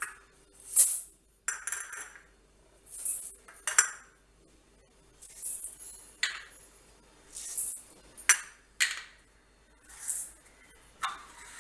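Dry lentils and rice poured from small bowls into a stainless-steel mixing bowl: a brief hiss of grains rattling onto the steel about every two seconds, with sharp clinks as the small bowls knock the rim.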